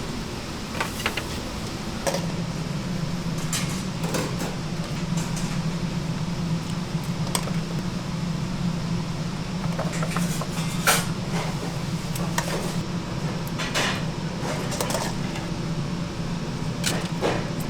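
Restaurant kitchen work: a steady low machine hum with scattered clicks and clinks of utensils and dishes, the sharpest about eleven seconds in.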